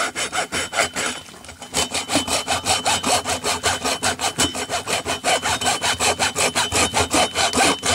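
Hacksaw blade cutting back and forth across a catfish's skull in quick, even strokes, about five a second, with a brief pause just after the first second.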